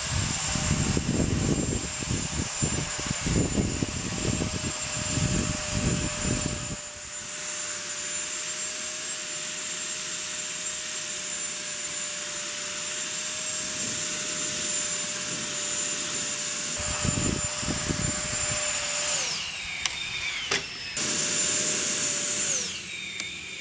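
Electric ducted fan of a model rocket running with a steady high whine while it hovers, with gusty rushing air at first. Near the end the whine drops sharply in pitch twice as the fan is throttled down.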